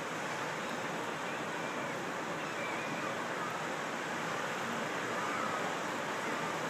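Steady rushing background noise at an even level, with no distinct individual sounds standing out.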